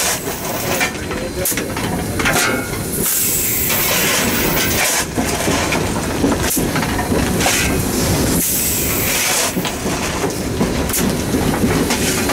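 Cab of the 2-8-0 steam locomotive Southern Railway 630 under way: a steady rumble from the running engine and rails, with short bursts of steam hiss every few seconds.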